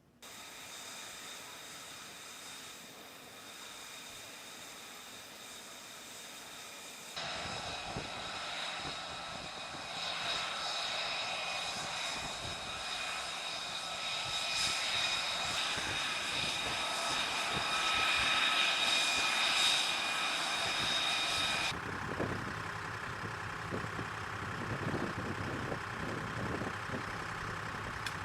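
F-35A Lightning II's single Pratt & Whitney F135 turbofan running with a high, steady whine over a jet roar. It gets louder suddenly about seven seconds in, builds further, then drops abruptly about two-thirds of the way through.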